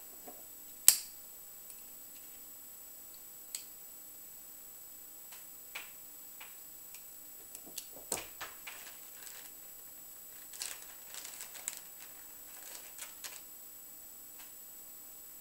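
Small paintball-marker parts clicking and clattering as they are picked up, handled and set down on a table: one sharp click about a second in, a few single taps, then clusters of light rattling clicks in the second half.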